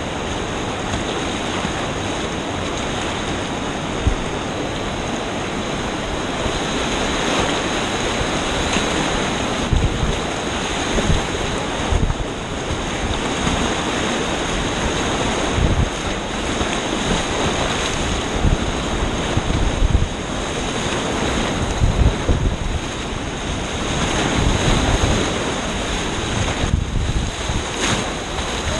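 Whitewater rapids rushing and churning around a kayak, with uneven surges and short splashes as the paddle strikes the water, and wind noise on the microphone.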